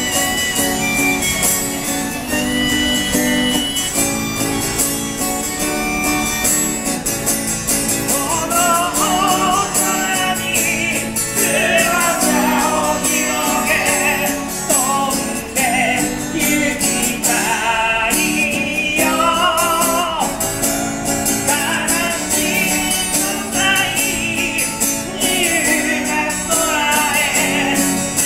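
Live street music: a small acoustic string instrument strummed steadily, with a melody on a neck-rack harmonica held in long notes at first, the melody line moving and bending more from about eight seconds in.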